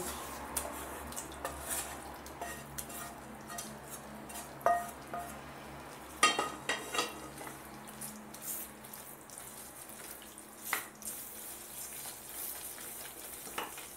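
Wooden spatula stirring and scraping a thick besan-and-mawa mixture in a nonstick pot over the gas, with a light sizzle of hot ghee and now and then a sharper knock of the spatula against the pot.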